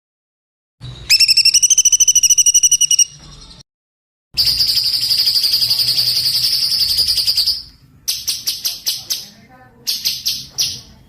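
Small songbird singing in rapid high trills: a trill of about two seconds, a short break, then a longer trill of about three seconds, followed by two bursts of quick repeated chips, with abrupt silences between the phrases.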